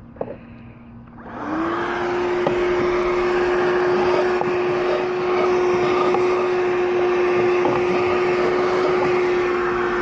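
A NUWA 12-volt cordless handheld car vacuum is switched on about a second in. Its motor spins up and then runs with a steady whine and a rush of suction air through the attached hose.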